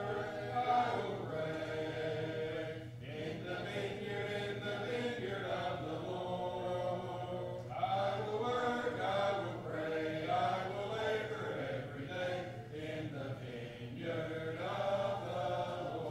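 A church congregation singing a hymn a cappella: unaccompanied voices together in sung phrases of a few seconds each.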